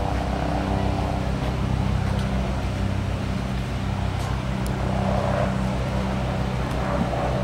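A steady low engine hum that runs without change.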